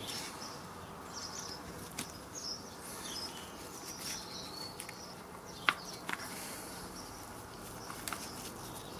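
A few light clicks and taps of a Honda CB400N's front brake caliper parts being handled and fitted together, the sharpest about two thirds of the way through, over quiet garden ambience with faint bird chirps.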